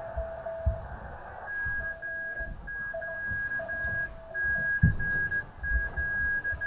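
Morse code (CW) on a ham radio receiver: two keyed signals at different pitches, a fainter low tone and, from about a second and a half in, a louder higher tone sending dots and dashes. A few dull low thumps sound under the code.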